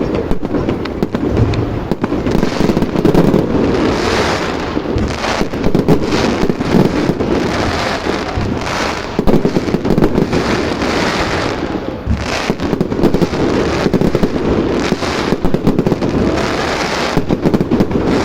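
Fireworks display going off continuously: dense, rapid bangs and crackling bursts one after another without a break.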